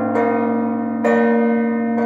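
Peal of six church bells: a new bell is struck near the start and another about a second in, each ringing on and overlapping the others over a deep bell's steady hum.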